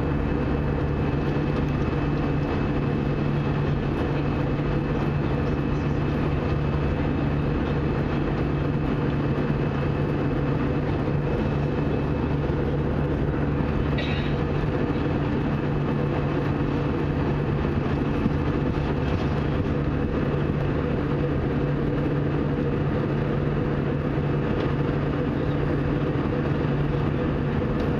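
Steady cabin drone of an Airbus A320 in flight: engine hum and airflow rush with a few constant low hum tones and a faint high whine over it.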